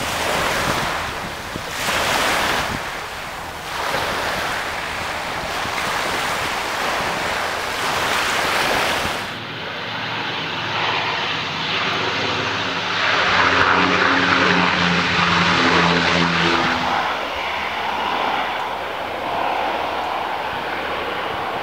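Canadair water bomber's twin turboprop engines passing low: a broad rushing engine noise, then a steady propeller drone that swells in the middle and fades away.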